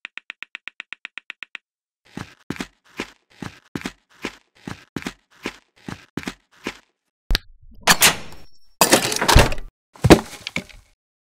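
Animation sound effects: a quick run of pitched beeps, then short footstep-like thuds about two a second as the minifigures walk in, then a sharp click and several loud crunching, crashing noises near the end.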